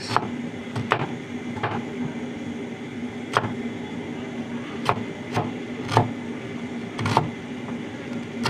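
Knife cutting ginger into small pieces on a chopping board: sharp single knocks at irregular spacing, roughly one a second, over a steady low hum.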